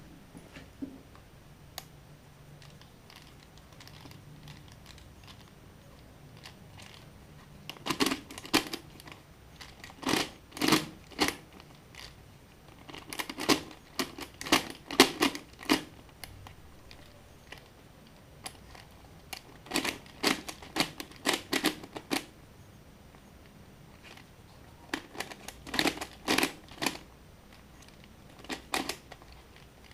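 Red non-magnetic Skewb puzzle being turned by hand, its plastic pieces clicking and clacking in quick bursts of turns. The clicking starts about eight seconds in and comes in groups separated by short pauses.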